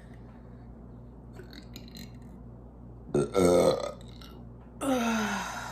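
A woman burping twice: a loud burp about three seconds in, then a second one near the end that drops in pitch as it goes.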